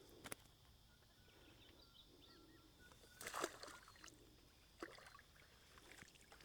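Near silence: faint outdoor background with a few brief soft noises, the loudest a short scuffle about three seconds in.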